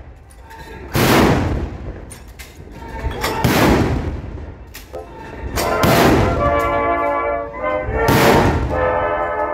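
A battery of field guns firing a ceremonial salute, one gun at a time: four shots about two and a half seconds apart. Music with held notes plays from about halfway through.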